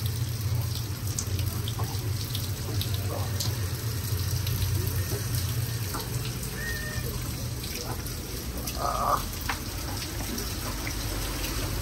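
Rain falling and floodwater running over the street, a steady rush of water with scattered drips and patters. A low steady hum sits underneath until about eight seconds in, and a short louder sound stands out about nine seconds in.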